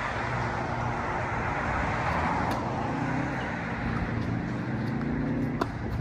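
Motor traffic passing: a steady road noise with a low engine hum, swelling about a third of the way in. Near the end comes a single sharp knock from the tennis ball.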